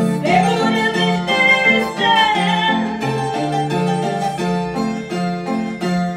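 Harp playing an instrumental passage of a song: a steady, repeating plucked bass pattern under a plucked melody. A wavering, sliding high melody line rises over it near the start and again about two seconds in.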